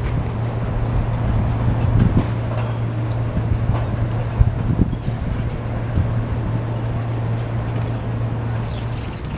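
Street ambience with a steady low engine hum that stops near the end, a few short knocks over it.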